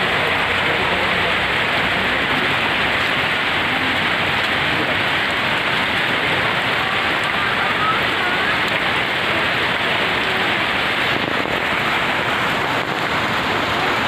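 Waterfall's falling water rushing steadily, a dense, even noise that never changes.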